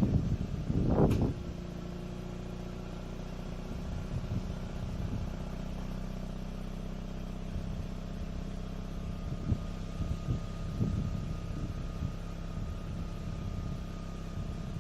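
Mazda RX-8's two-rotor rotary engine dropping back from a rev about a second in, then idling steadily.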